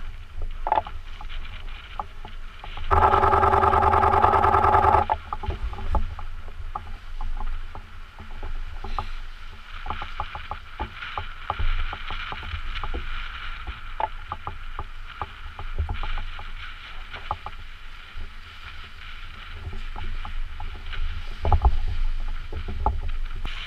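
Small waves lapping and splashing against shoreline rocks, with many small pops and a low rumble. A loud, rough, buzzing rush starts suddenly about three seconds in and stops just as suddenly two seconds later.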